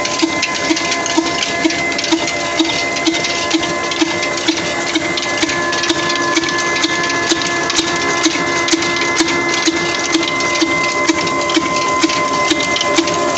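Old 26 HP desi diesel engine running steadily, belt-driving a chakki flour mill: a regular thud about twice a second under a steady whine, with scattered sharp clicks.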